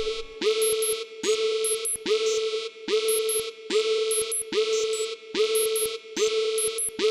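Synthesized alert tone: a single note that swoops up into a held pitch and breaks off, repeating evenly about every 0.8 seconds.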